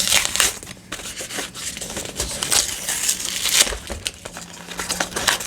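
Blind-box packaging being torn open and handled: irregular crinkling and rustling with short tearing sounds.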